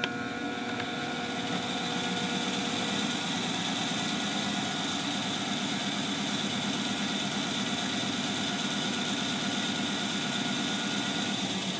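Crankshaft balancing machine spinning a 454 big-block Chevy crankshaft fitted with bob weights on its belt drive. It runs as a steady mechanical hum with a high whine, building slightly over the first few seconds. This is a test spin to read the remaining imbalance during final balancing.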